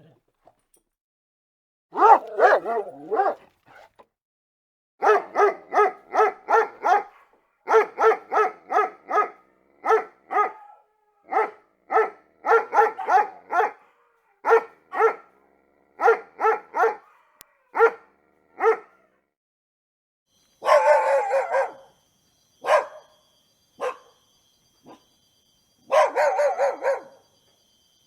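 A dog barking over and over in quick runs of short barks, about three or four a second, broken by pauses, with a few longer drawn-out barks near the end.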